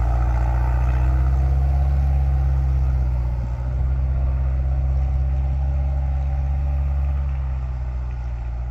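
Tucker Sno-Cat engine running with a steady, deep drone as the machine drives off over the snow, its sound easing slightly toward the end.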